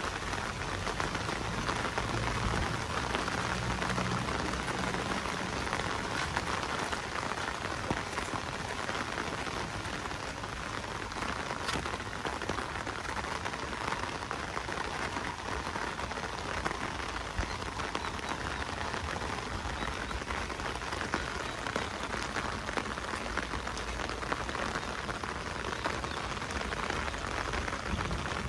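Heavy rain falling steadily, a dense, even patter of drops.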